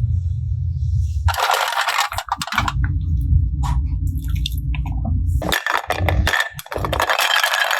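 Slime being handled, making wet squishing and crackling sounds. There is a short spell of it about a second and a half in and a longer one from about five and a half seconds on.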